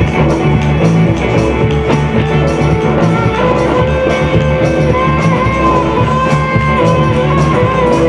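Upbeat gospel praise music with guitar and drums keeping a steady beat; from about three seconds in, a long held melody line rides over the band.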